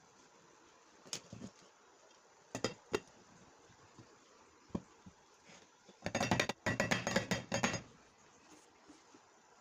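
Kitchen dishes and utensils clinking: a few separate clinks, then a quick run of clattering for almost two seconds about six seconds in.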